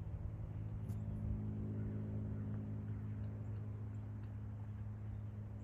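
Steady low mechanical hum, even in level throughout, with a faint click about a second in.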